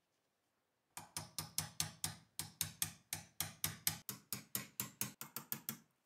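Rapid, even run of sharp metallic clicks on the steel parts of a Luger P08 pistol being worked by hand, about five a second, starting about a second in and lasting about five seconds.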